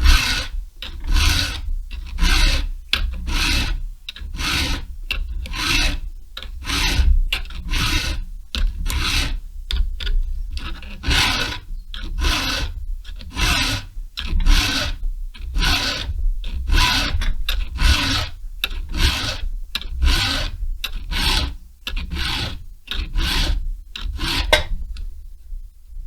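Hand file rasping across a chainsaw chain's cutters in quick, light strokes, about two a second, reshaping full-chisel cutters to a milling angle. The strokes stop near the end.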